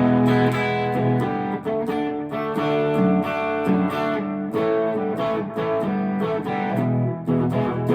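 Electric guitar played through an overdrive pedal into a Harley Benton amp: strummed chords and picked notes, changing every half second or so, with a mild overdriven edge. The guitar is out of tune, as the player admits.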